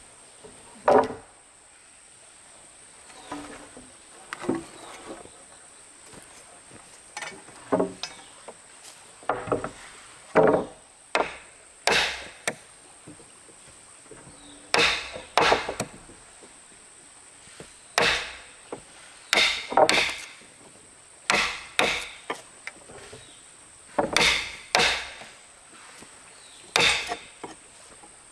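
Irregular strikes of a tool on timber, chopping and knocking, often in quick groups of two or three with pauses between.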